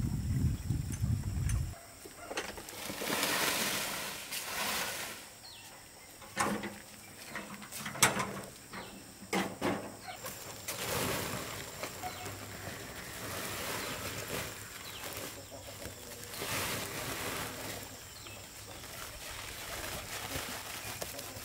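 Metal wheelbarrow rolling and rumbling over a dirt path for the first couple of seconds, followed by scattered knocks and scrapes and the rustle of soil being handled and poured.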